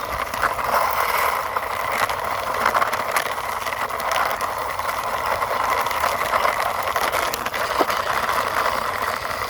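Cheap plastic toy racing car pushed along by hand, its plastic wheels rolling with a steady clicking rattle.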